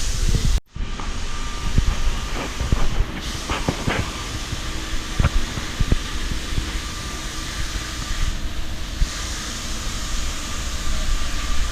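Steady machine-shop background noise, a hum with hiss, with scattered light clicks and knocks. The sound cuts out completely for a moment about half a second in.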